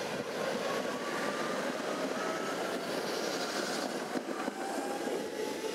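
Two coupled trams passing on their rails: a steady rolling rumble of the wheels with faint whining tones that slide slowly in pitch, and a couple of sharp knocks a little after four seconds in.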